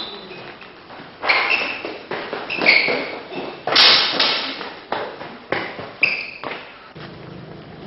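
Hurried running footsteps and a string of thuds as several people rush across a room and out of it, about eight hits with the loudest near the middle. It settles into a low steady hum about seven seconds in.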